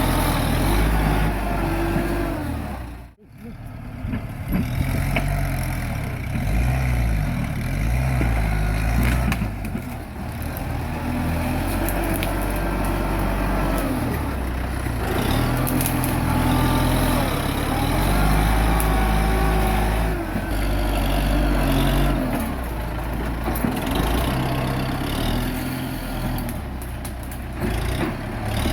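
Kubota M6040 tractor's diesel engine running, its pitch rising and falling as the load changes; the sound cuts out briefly about three seconds in.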